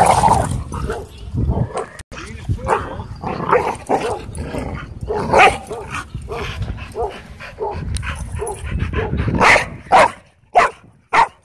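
Dogs play-fighting at close range: a husky and a black dog wrestling, with a stream of short barks and yips, and a few sharp, loud ones near the end.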